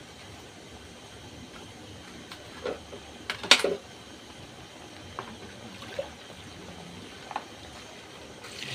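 Low background with a few faint short knocks and one sharp knock about three and a half seconds in. Near the end, water starts pouring into a large aluminium pot of beans.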